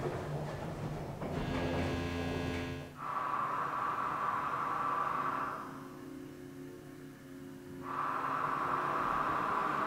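Dark ambient sound-design drone: a low steady hum, denser and fuller for the first three seconds, then overlaid by a band of hiss that swells for about three seconds, drops away, and swells again near the end.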